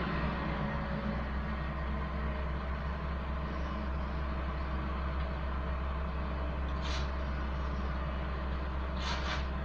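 Diesel engine of heavy road-works machinery running steadily with a low hum. A short hiss comes about seven seconds in, and two more close together near the end.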